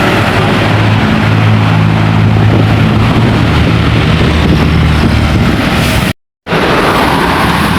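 Bus passing close by: its engine drones low under heavy road and wind noise, with no horn. The sound drops out completely for a split second about six seconds in, then resumes.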